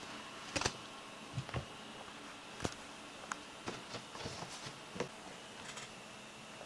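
Scattered light taps and clicks, about ten at irregular intervals, from kittens moving about and playing on a blanket; the loudest is a quick double click a little over half a second in.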